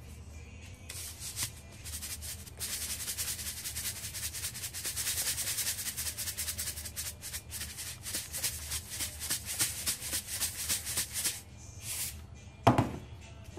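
Salt shaken from a plastic shaker into a bowl of breadcrumbs: a rattling hiss of grains, about five shakes a second for several seconds. A single knock near the end.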